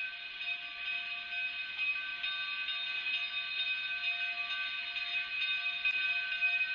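K36 steam locomotive 489 and its nine-car narrow gauge train rolling slowly into the yard: several steady high-pitched tones sound at once over a hiss.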